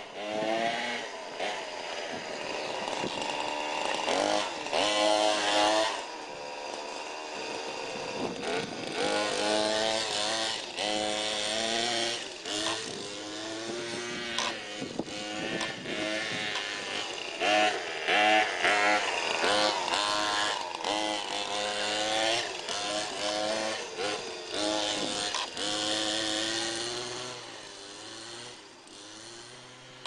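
Small two-stroke engine of a Shengqi Baja RC buggy being driven, revving up and down over and over, its pitch rising and falling with the throttle. It grows fainter near the end.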